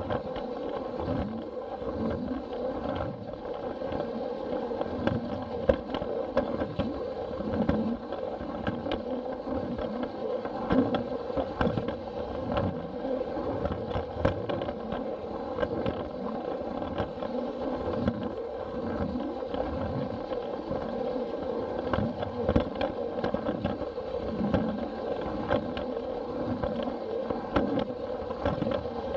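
Battery-powered Plarail toy train running on plastic track: a steady motor and gearbox whine with irregular clicking and rattling of the wheels over the track joints.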